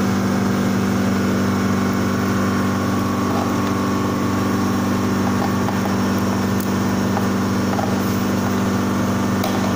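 Ultra-low-temperature LCD freezer separator running: a steady mechanical hum from its refrigeration compressor, with a few faint clicks near the end.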